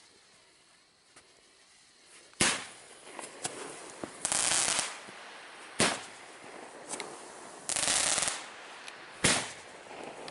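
Fireworks going off: three loud, sharp bangs about three and a half seconds apart, with two short hissing bursts between them and a few small pops.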